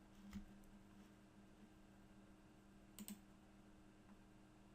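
Faint computer mouse clicks over a quiet room: one about a third of a second in, then a quick pair about three seconds in.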